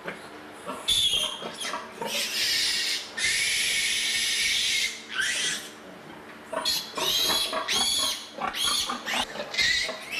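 Piglets squealing as they are caught and handled for injections: loud, high-pitched squeals, with one long unbroken squeal of nearly two seconds about three seconds in and a run of shorter squeals in the second half. A steady low hum runs underneath.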